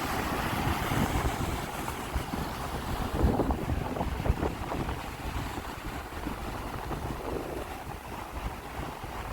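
Sea waves washing in, with a swell about three seconds in, over wind rumbling on the microphone.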